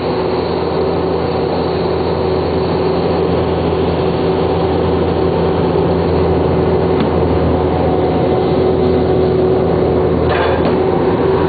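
Vermeer D24X40 Series 2 horizontal directional drill running steadily under load, a constant drone with a held whine, while pumping drilling fluid through the bore. A brief rattle comes about ten seconds in.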